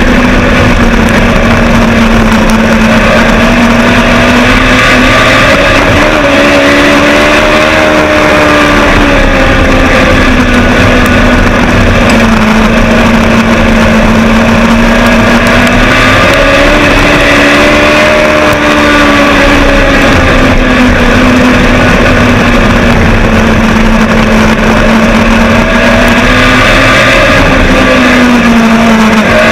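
Legend car's Yamaha four-cylinder motorcycle engine at racing speed, heard loud from inside the cockpit. Its pitch rises and falls in a slow cycle about every ten seconds as the car laps the oval, on and off the throttle.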